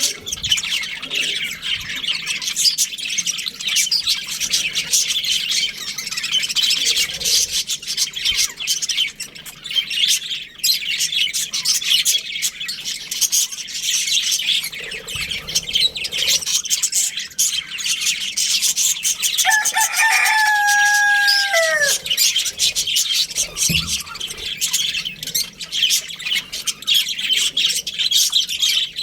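A colony of budgerigars chirping continuously, many rapid high chirps overlapping. About twenty seconds in, a single lower, drawn-out call lasting about two seconds ends in a falling pitch.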